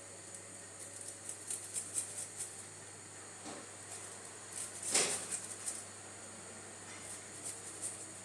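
Garlic cloves rubbed on a small metal hand grater: quick, scratchy rasping strokes in three short runs, with a sharper knock about five seconds in.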